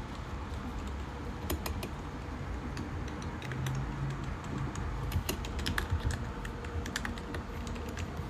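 Typing on a mechanical keyboard: a fast, irregular patter of key clicks.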